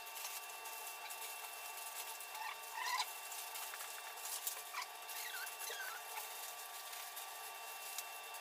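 Aluminium foil crinkling and rustling as it is folded tightly around a whole fish, with a few short, faint squeaks.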